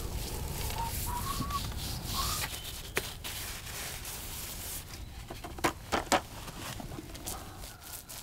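Paintbrush scrubbing primer onto rough textured facade render: a dry, scratchy rub, strongest in the first few seconds. A few sharp clicks come later, and there are faint chirps early on.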